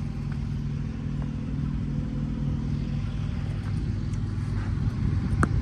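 An engine running at a steady idle, a low even rumble. A sharp knock comes near the end.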